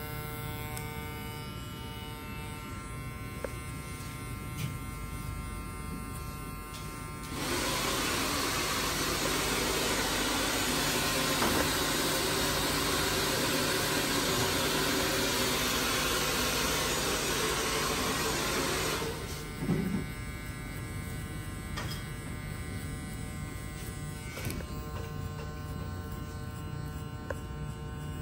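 Electric hair clipper buzzing steadily. About seven seconds in, a louder, even rushing noise starts; it lasts about twelve seconds, then stops, and the clipper buzz carries on.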